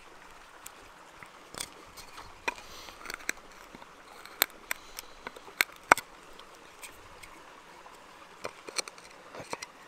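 Knife blade carving a notch into a wooden bow-drill hearth board: irregular short, sharp clicks and scrapes of steel cutting wood, with a few louder snaps near the middle.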